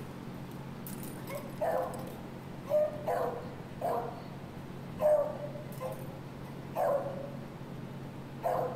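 Dog barking repeatedly in short single barks, about eight of them at roughly one a second, over a faint steady hum.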